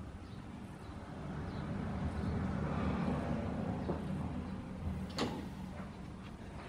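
Gym sounds as a heavy barbell deadlift is set up: a rushing swell of noise builds and fades over a few seconds, then a single sharp click about five seconds in, followed by a few lighter knocks.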